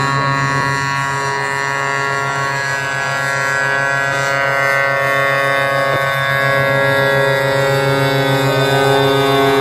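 Truck air horns sounding together in one steady, many-toned chord over a low pulsing note, with a rising tone coming in near the end.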